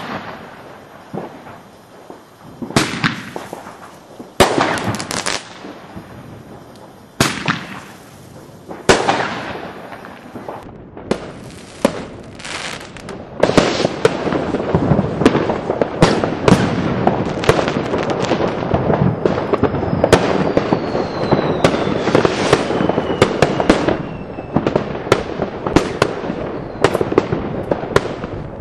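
Fireworks going off: separate loud bangs a second or two apart, each trailing off, then from about halfway a dense, continuous barrage of overlapping bangs and crackle. A falling whistle sounds in the middle of the barrage.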